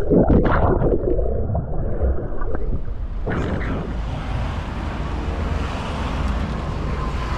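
Muffled, bubbling underwater sound from a camera submerged in a swimming pool, with a few short splashy noises. About three seconds in it switches abruptly to a steady open-air hiss of street ambience.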